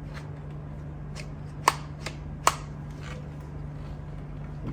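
Vacuum cleaner accessories being handled: a few light clicks and knocks, two sharper clicks about a second and a half and two and a half seconds in, over a steady low hum.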